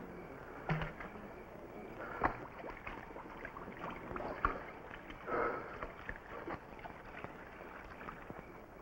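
Liquid being poured back into a wooden barrel in short splashes, with light knocks of wood and a vessel against the barrel's rim.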